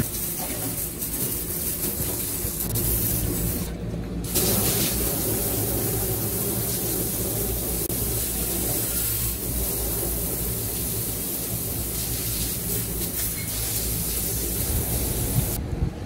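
Water spraying from a hose nozzle, washing a dirty microchannel condenser coil on a rooftop AC unit: a steady hiss of spray that breaks off briefly about four seconds in.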